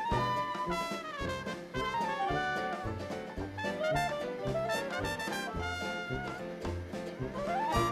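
Background music in a jazz style, with brass-like lead lines sliding in pitch over a steady pulsing bass.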